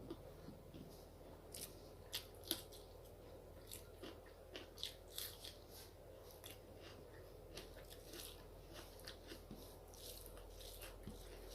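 A person chewing food close to the microphone: soft, irregular wet mouth clicks and smacks, a few a second.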